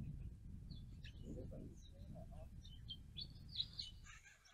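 Small birds chirping and twittering in short, scattered calls, busiest near the end, over a steady low rumble.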